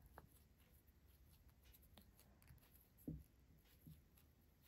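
Near silence, with a few faint ticks and rustles of a steel crochet hook working cotton thread.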